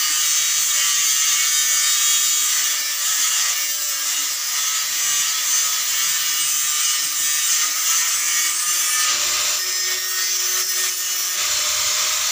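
Angle grinder grinding steel: a steady, high-pitched grinding noise that runs on without a break.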